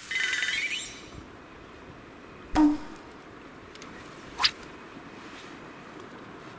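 Edited-in sound effects: a bright ringing chime lasting under a second, then two short swoosh-like hits about two seconds apart, the first the louder, over a faint outdoor hush.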